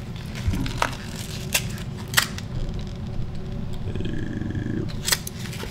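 Light clicks and taps of small parts and a small cardboard box being handled and set down on a tabletop, a handful of separate knocks over a steady low hum.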